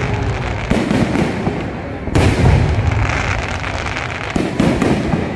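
Aerial fireworks going off: three sudden loud bursts, one every second and a half to two seconds, with continuous crackling between them.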